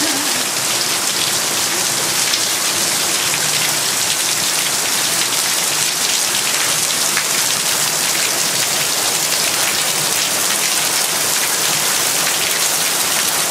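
Heavy monsoon downpour: a steady, dense hiss of rain that stays even throughout.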